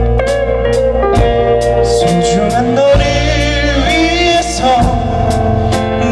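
Live rock band playing with electric guitar and a drum kit keeping a steady beat, and a male vocalist singing through a microphone from about two seconds in.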